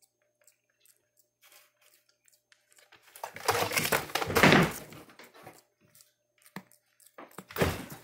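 Pet macaques scrambling through an artificial plant and a pile of plastic bags and toys: loud rustling and crinkling that starts about three seconds in, with a second, shorter burst near the end.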